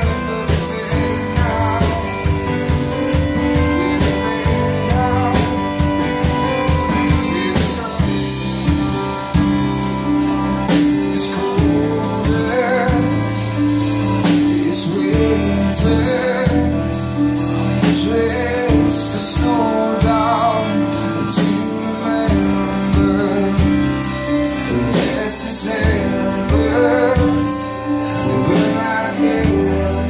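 A live band playing a song: electric guitar, bass guitar, drum kit and a Roland FP-4 digital piano, with a man singing over them.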